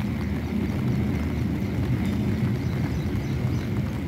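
Approaching diesel locomotive: a steady low rumble with a choppy, uneven texture.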